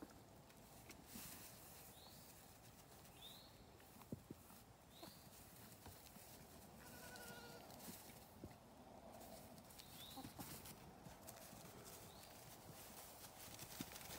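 Mostly faint outdoor quiet with a single short, wavering bleat from a young goat about halfway through, and a few light knocks.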